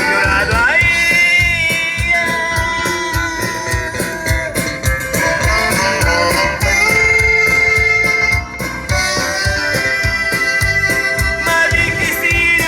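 A rock band playing a song at a sound check: drums keeping a steady beat under sustained melody lines, with one note held for over a second past the middle.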